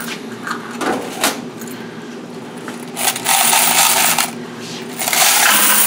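Quarters pouring out of a washer's metal coin box into a bucket in two long jangling rushes, about three and five seconds in. A couple of sharp clicks come about a second in, from the coin-vault lock and box.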